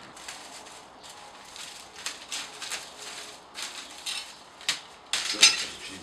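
Dry broomcorn straw rustling and swishing as bundles are handled and sorted for broom-making. It comes in irregular bursts, the loudest a little after five seconds in.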